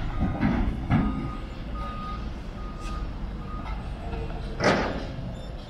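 A construction machine's reversing alarm beeps about once a second over the low, steady rumble of diesel machinery. A short, loud noise cuts in near the end.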